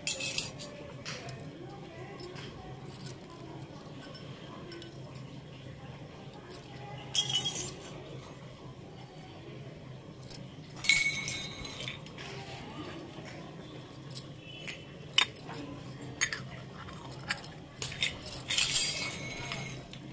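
Miniature stainless-steel toy pans and plates clinking and tapping against each other and the concrete floor as they are handled and set down, in a few short scattered clusters of light metallic clinks.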